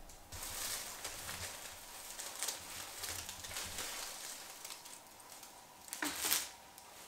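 Thin plastic carrier bag rustling and crinkling as takeaway food is pulled out of it, with a louder crinkle about six seconds in.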